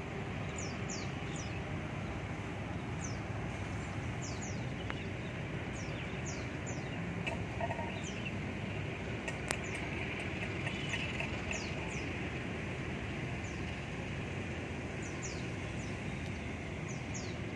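Steady hum of distant road traffic, with a small bird repeating short, high, falling chirps every second or so.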